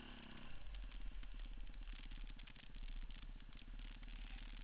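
Enduro dirt bike engine running at a steady low speed as the bike rides a forest trail, with a low rumble underneath.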